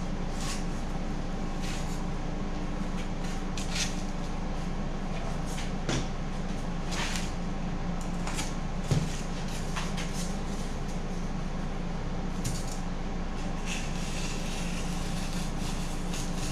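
Handling and trimming of a piece of foam board with a utility knife: brief, scattered scratchy strokes and tool clatter, with a single sharp knock about nine seconds in. A steady low hum runs underneath throughout.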